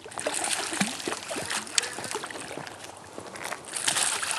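Splashing and sloshing of a hooked largemouth bass thrashing at the water's surface, in irregular bursts, loudest near the end.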